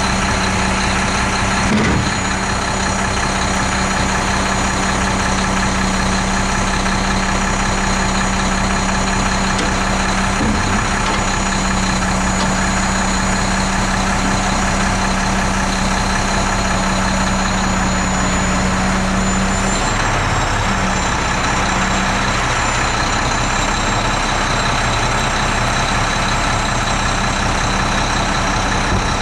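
Truck engine running steadily while the truck's hydraulics work, first lowering the bin-lifting loader arm and then raising the dump box. A steady low hum runs through it and drops away about two-thirds of the way through, with a clunk about two seconds in and another about ten seconds in.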